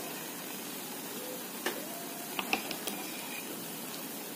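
Besan (gram flour) frying in ghee in a metal wok, a steady sizzle, with a few light clicks of a spoon or spatula against the pan between about one and a half and three seconds in.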